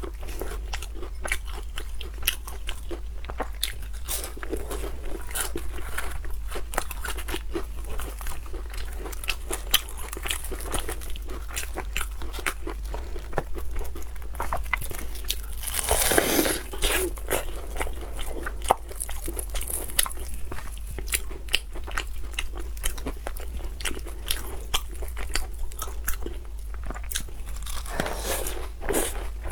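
Close-miked crunching and chewing of crispy fried chicken nuggets: dense irregular crackles of breading breaking between the teeth, with one louder crunching burst about halfway through.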